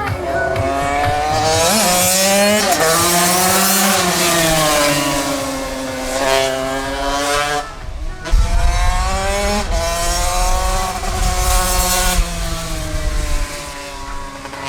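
Small motorcycle engine riding laps, its note rising and falling over and over as the throttle opens and shuts through the bends. The sound breaks off abruptly a couple of times in the second half.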